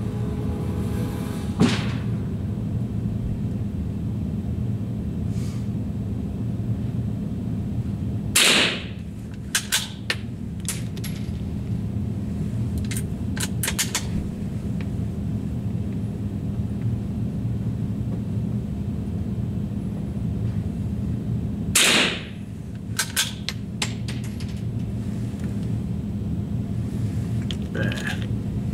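Two rifle shots, about eight and a half seconds in and again near 22 seconds, each followed within a couple of seconds by a few sharp metallic clicks. A steady low hum runs underneath.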